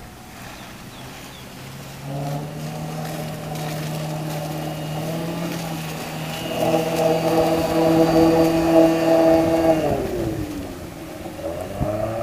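Outboard motor driving an inflatable boat across the water, running at a steady pitch and growing louder for a few seconds. About ten seconds in its pitch drops, and near the end a fresh engine tone rises.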